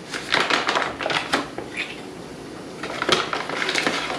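Paper bag of all-purpose flour crinkling and rustling as it is unrolled and opened by hand, in two spells, the second near the end.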